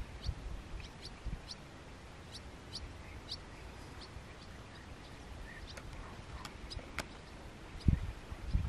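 Small birds chirping in short, high, quickly falling chirps scattered through, over a quiet outdoor background. A sharp click comes about seven seconds in, and a few low thumps come at the start and near the end.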